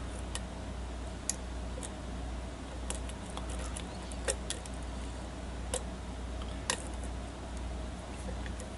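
Light, irregular metallic clicks and ticks of a lock pick working the pins of a pin-tumbler challenge lock, a few a second, with a few sharper clicks standing out. A steady low hum runs underneath.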